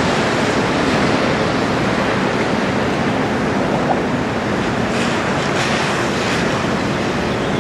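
Steady rushing of wind and waves, with wind buffeting the microphone.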